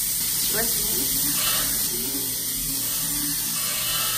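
Cubed London broil and sliced peppers and onions searing in a hot cast-iron skillet: a steady sizzling hiss.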